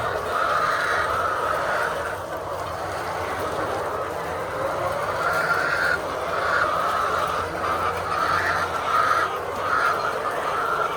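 A flock of laying hens calling continuously, many overlapping clucks and squawks.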